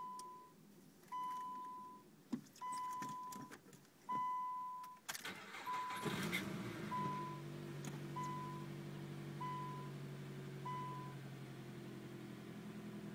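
Nissan Sentra Spec-V's dashboard warning chime beeping about every second and a half, with clicks of keys, then the 2.5-litre four-cylinder engine cranking and starting about five seconds in and settling into a steady idle. The chime stops near the end. The idle carries the noise that turned out to be a failing alternator.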